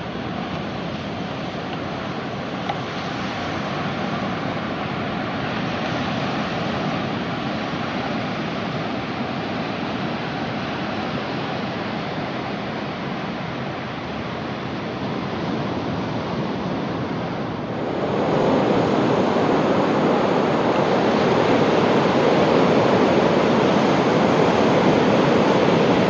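Ocean surf breaking on a sandy beach: a steady rush of waves that gets clearly louder about two-thirds of the way through, as the waves come nearer.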